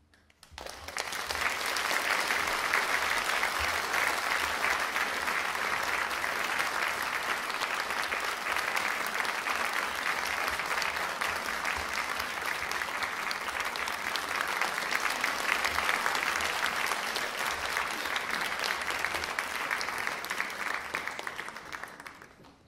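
Audience applauding. It starts about half a second in, builds over the next second or so, holds steady, and dies away near the end.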